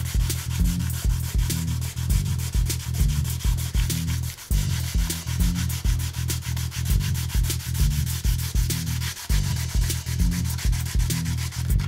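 Hand sanding paint off a wooden drum shell with marine-grade sandpaper in quick back-and-forth strokes, over backing music with a deep bass line and a steady beat.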